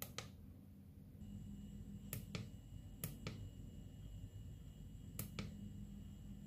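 Push buttons on a Parkside PKIK 4.3 A1 inspection camera's handset clicking as they are pressed: four quick double clicks, irregularly spaced. A faint steady high whine comes in about a second in.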